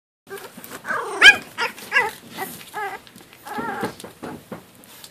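Puppies not quite four weeks old play-fighting, giving a string of short, high-pitched yips and squeals. The loudest comes a little over a second in, and a longer wavering one about three and a half seconds in.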